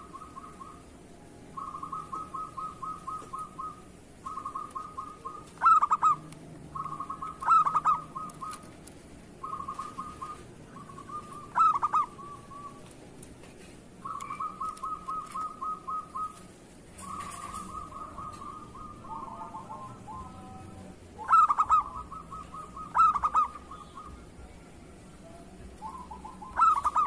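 Zebra dove (perkutut) cooing: a string of fast, rattling trilled phrases, each a second or two long, with about six loud, sharp notes standing out among them.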